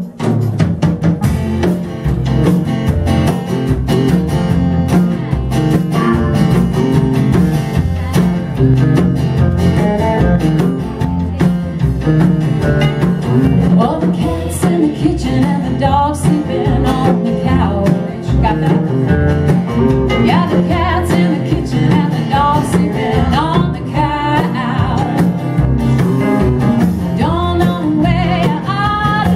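Live band playing a country-blues song: a woman sings lead over acoustic guitar, with a steady low beat underneath.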